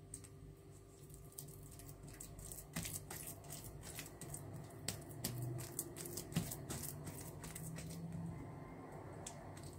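Hands smearing and pressing an oily ground poppy seed paste into soft yeast dough: faint wet squishing with many small irregular clicks, over a steady low hum.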